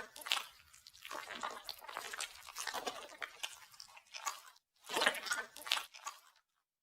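Crunching and crackling of things being crushed under a car tyre, coming in uneven bursts, with a louder stretch about five seconds in; it cuts off abruptly near the end.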